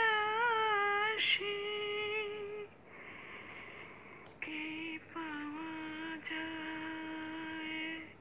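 A woman singing an Islamic gojol, a Bengali devotional song, alone with no instruments. She holds long, slowly wavering notes, breaks off for a moment about three seconds in, then carries on with long held notes.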